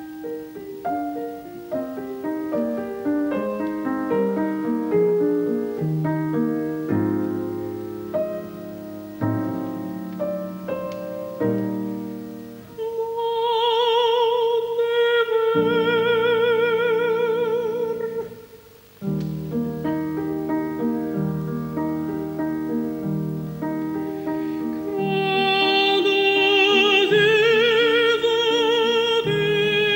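Piano introduction, then an operatic female voice singing with wide vibrato over the piano accompaniment, holding long notes. After a brief pause the piano resumes and the voice comes back louder on sustained high notes.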